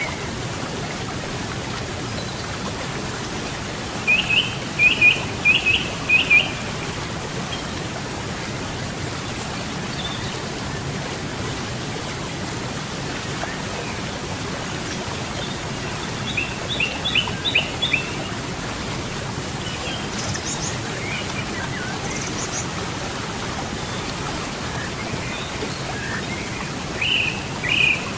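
Steady rush of flowing river water, with a songbird singing short phrases of quick, down-slurred chirps: about four seconds in, around sixteen seconds and again near the end. A few fainter, higher calls come in between.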